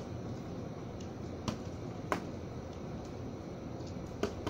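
Boxing-glove punches slapping against an opponent's raised gloves: several short, sharp smacks a second or so apart, the last after a pause of about two seconds.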